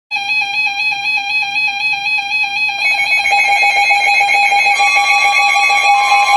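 Electronic tones, starting suddenly after silence: one held tone with a fast regular warble, joined by further tones about three seconds in and again near five seconds, building into a sustained chord.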